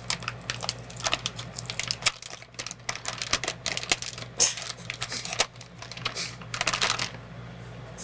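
A graphics card's packaging being cut open with a knife and handled: a quick, irregular run of small clicks and crinkles, with a few short rustling swishes in the second half.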